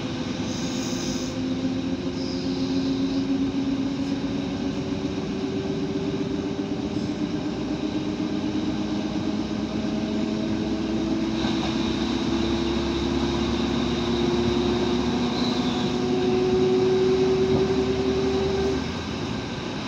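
ALn668 diesel railcar's underfloor engine working hard as the railcar picks up speed, its note rising slowly and steadily. The engine sound drops back near the end.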